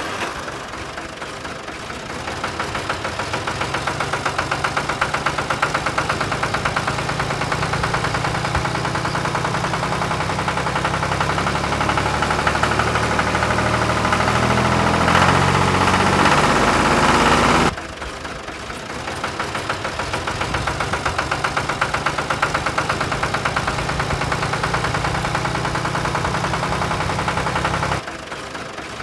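Tractor engine chugging steadily with a fast, even knocking pulse. It grows louder toward the middle, drops off suddenly about 18 seconds in, builds again, and drops once more near the end.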